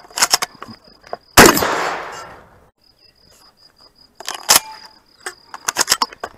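A single loud shotgun shot about a second and a half in, ringing out and dying away over about a second. Around it come short metallic clicks of shells being pushed into the shotgun's loading port by hand, with a faint steady insect chirping underneath.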